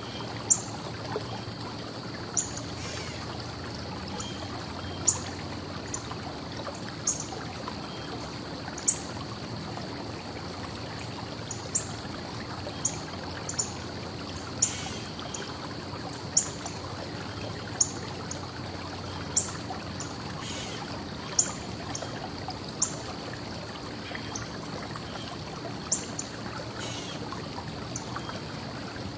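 Steady outdoor ambience of distant traffic, a continuous low rumble and wash, with short, sharp, high-pitched chirps or ticks every second or two over it.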